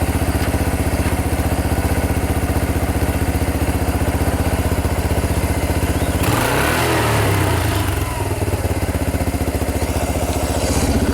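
1983 Kawasaki KLT200C three-wheeler's single-cylinder four-stroke engine running at a steady beat. About six seconds in it is revved harder for a couple of seconds, then settles back to its steady running.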